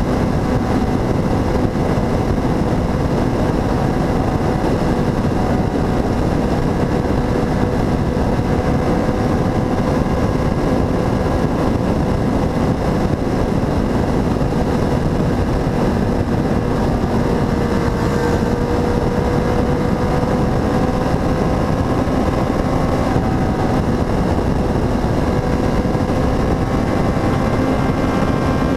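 Motorcycle engine running at a steady cruising speed, its pitch nearly constant, under a heavy rush of wind and road noise.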